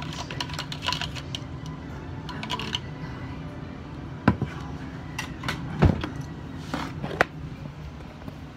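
Metal spoon stirring salt into water in a plastic cup, with quick clicks and scrapes and three louder knocks about four, six and seven seconds in. A steady low hum runs underneath.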